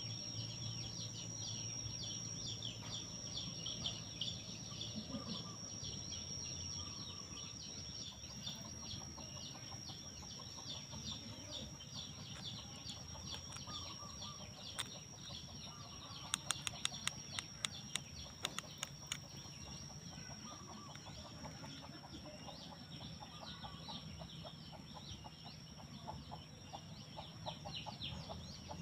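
Faint outdoor ambience: insects droning and chirping steadily in a high register, with occasional short bird calls. A quick run of sharp clicks comes a little past the middle.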